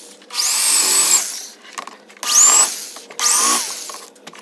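Corded electric drill drilling out the factory rivets that hold the inside door handle to the truck's door panel, in three short bursts, the motor's whine rising as each spins up and then holding.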